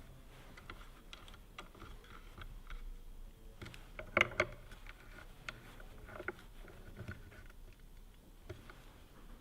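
Small metal parts being handled at a bench: scattered light clicks and taps, with one louder knock about four seconds in.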